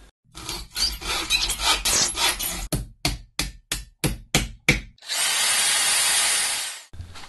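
A sequence of workshop tool sounds: hand-tool scraping, saw-like strokes, then a quick run of about eight sharp strikes, roughly three a second. Then a power tool runs steadily with a faint high whine for about two seconds and cuts off.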